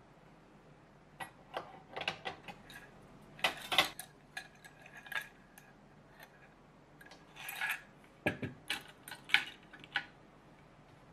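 Small metal kitchen utensils and metal-hooked adhesive wall hooks clinking and rattling as they are handled and set down on a wooden tray and in a wooden bowl. A string of separate light clicks starts about a second in, with busier clattering around four seconds and again around eight to nine seconds in.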